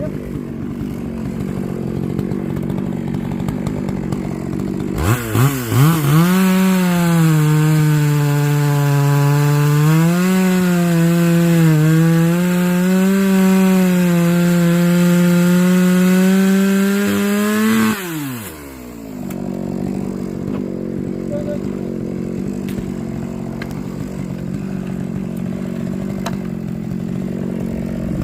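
Chainsaw revving up about five seconds in and running at full throttle for about thirteen seconds, its pitch dipping and recovering as the chain bites into wood, then dropping back to a lower steady running sound.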